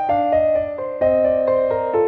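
Background piano music: a quick run of single notes, a new note every quarter second or so.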